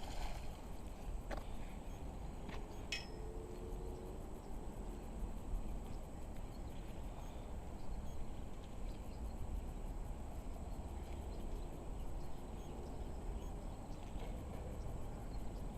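Steady low rumble of background noise with a few faint clicks and short faint tones, and no clear single source.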